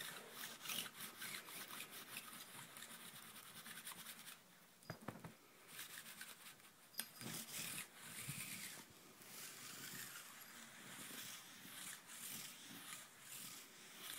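Faint scratchy rustling of a bed quilt, with quick irregular scrapes and light taps, as a cat scrambles and paws at it in play.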